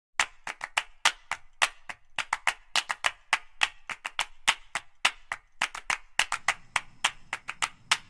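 A quick, irregular run of sharp clicks and crackles, several a second, over a faint steady low hum.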